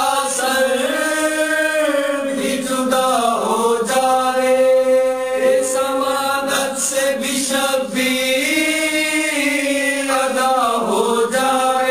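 A voice chanting a Muharram lament in long, held melodic phrases with slow bends in pitch, breaking briefly between lines.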